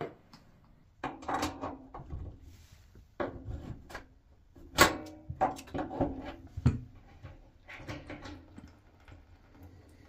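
Hand tools and metal radiator valve fittings being handled: a run of knocks, clicks and scraping. The loudest is a sharp knock about five seconds in.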